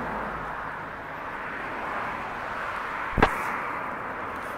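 Steady outdoor background noise, like distant traffic, with a single sharp knock about three seconds in.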